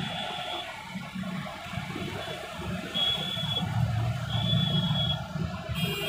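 Steady road and engine noise inside a moving car, a low rumble that swells a little in the second half, with a thin high tone that comes and goes a few times.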